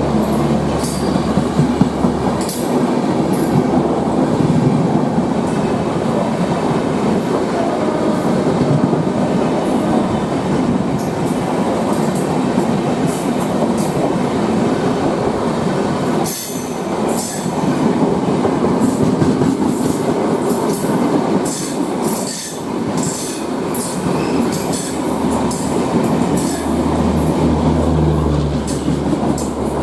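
Passenger train's coaches running on the track: a loud, steady rumble of wheels on rails with many quick clicks over the rail joints, which grow thicker in the second half, and two brief lulls.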